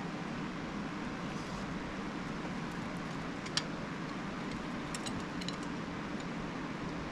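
Steady background hum of a garage fan, with a few light metallic clicks of hinge parts and the pin being handled. One click comes about three and a half seconds in and a few come around five seconds.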